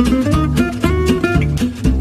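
Background music: fast plucked acoustic guitar with a steady beat.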